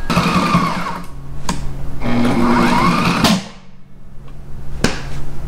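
Sailrite LSZ-1 sewing machine's motor running and stitching through thick layers of canvas, with a rising and falling pitch, then cutting out abruptly about three seconds in: the sign of its plastic drive shear pin snapping. A sharp click follows near the end.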